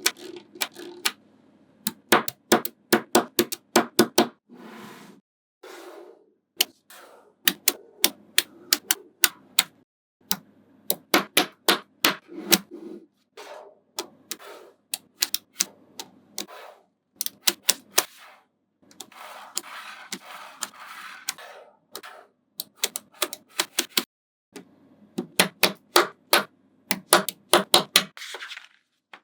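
Small neodymium magnetic balls clicking sharply together as they are snapped into place, in quick runs of clicks with short pauses. A few seconds of softer rattling come about two-thirds of the way through.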